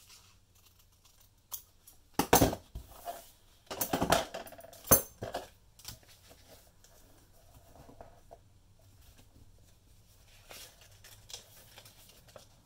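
Paper envelope being handled and folded: crackly rustling of the paper, with a cluster of loud sharp crinkles about two to five seconds in and softer rustling near the end.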